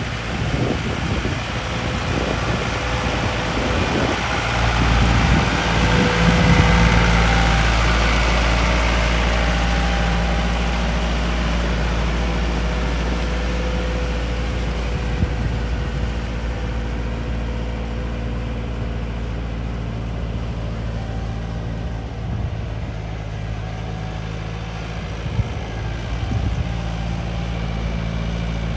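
Yanmar EF725T 72-horsepower tractor's diesel engine running steadily while working a field, growing louder about five seconds in and easing off slowly afterwards.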